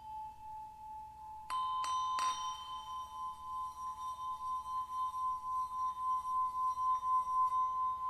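Music of struck bell-like tones: three strikes in quick succession about a second and a half in, then a long ringing tone that pulses slowly in loudness.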